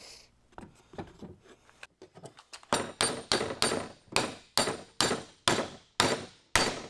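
Hammer striking wood, driving a glued handle into a wooden mallet head. A few light taps give way, about three seconds in, to steady hard blows about three a second.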